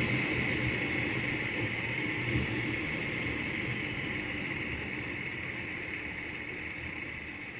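A vehicle on the move: steady engine and road rumble with a hiss over it, gradually getting quieter.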